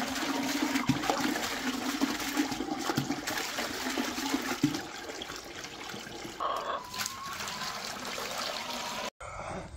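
Water running and splashing in a steady rush, which stops abruptly near the end.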